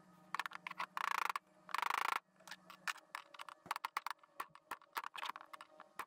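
Small metal clicks and scrapes as the pins and lever of a clutch pedal assembly are handled and the smaller pin is seated. There are two short scraping sounds about one and two seconds in, then scattered light clicks.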